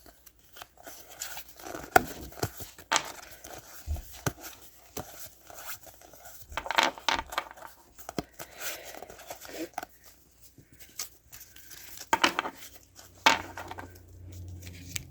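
Foil Pokémon card booster-pack wrappers being torn open and crinkled by hand: irregular short rustles and tearing bursts with small clicks.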